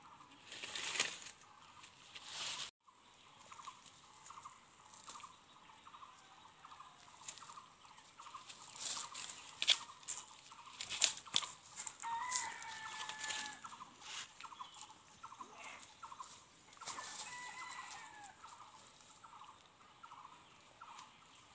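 Chickens clucking in runs of short, quick calls, with a couple of brief higher calls about halfway through and again later. Rustling and crackling of dry leaves and grass underfoot.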